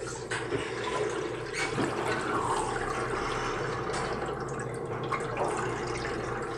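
Underwater water noise: steady sloshing and gurgling, with a low, even hum beneath it.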